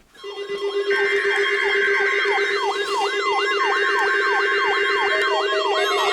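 Electronic siren wailing up and down about twice a second over a steady low tone. Two screechy bursts of digital data tones, each under two seconds, sit on top with a short gap between them, in the manner of EAS alert header tones.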